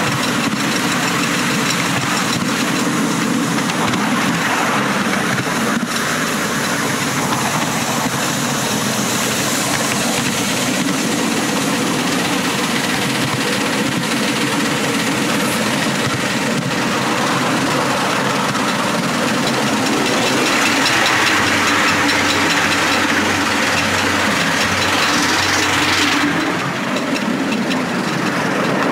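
Miniature steam locomotive running along the track, heard from the car riding right behind it: a steady, dense noise of the engine and the wheels on the rails. The higher hiss drops away a couple of seconds before the end.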